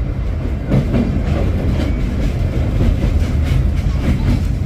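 Sagano sightseeing train's carriage rumbling steadily along the rails, heard from aboard, with a few irregular clicks of the wheels over the track.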